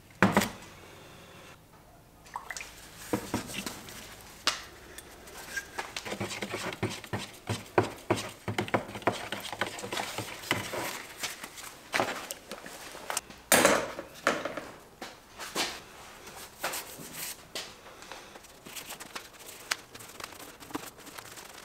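Resin being poured and hand-mixed in plastic cups: a busy clatter of plastic cups, containers and a stirring stick knocking and clicking, with some pouring and stirring. Two louder knocks stand out, one right at the start and one about halfway.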